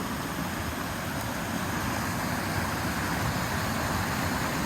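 Steady rush of creek water pouring over rocks.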